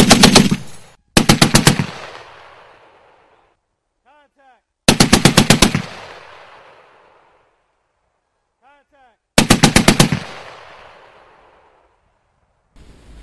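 Browning M2 .50 caliber heavy machine gun firing short bursts of about six to eight rounds each, four bursts in all, with a first burst already under way at the start. Each burst is followed by a long echo that dies away.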